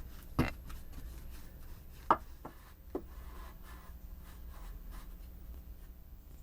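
Handling noise from working with a paintbrush and materials: a few light taps and knocks, the sharpest about two seconds in, with soft rubbing sounds between them.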